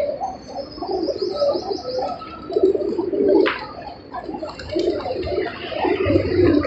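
A flock of pigeons cooing, with many low coos overlapping one another. A short run of high chirps comes about a second in.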